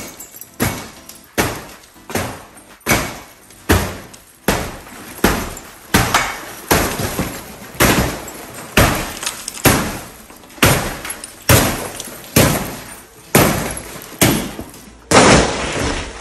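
Baseball bat striking a tempered glass door, already shattered but held together by a two-part security window film, again and again: a crash of broken glass about every 0.8 s, each dying away quickly. The loudest blow comes near the end.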